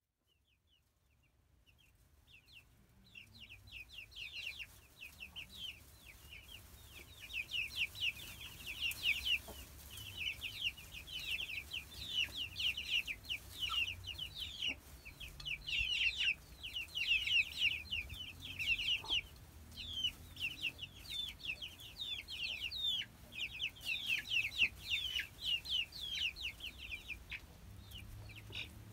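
A flock of six-week-old Brahma chicks peeping, with many short falling cheeps overlapping continuously. The peeping fades in over the first few seconds.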